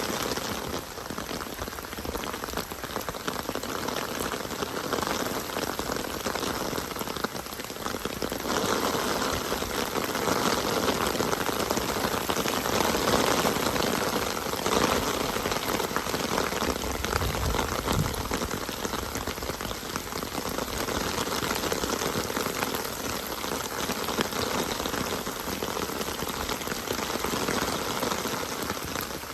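Steady rain falling, an even hiss of drops pattering on surfaces, growing a little heavier for several seconds near the middle.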